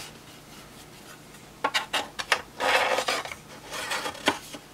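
Metal front plate being fitted into a UPS's steel chassis over the batteries: a few light metallic clicks, a short scrape about halfway through, then more clicks and a knock near the end.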